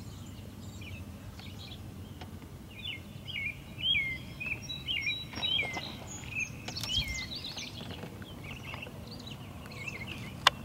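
Songbirds chirping, a run of short hooked calls that is densest in the middle, over a steady low hum. A single sharp click sounds near the end.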